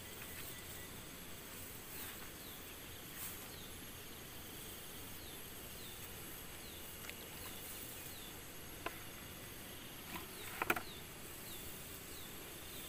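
Outdoor field ambience: an insect repeating short falling chirps, about one or two a second, over a steady hiss, with a few brief rustles and knocks as grass is pushed aside by hand.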